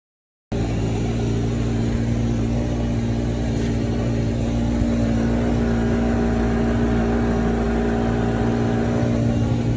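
Side-by-side utility vehicle's engine running at a steady speed while driving, cutting in suddenly about half a second in after a moment of silence.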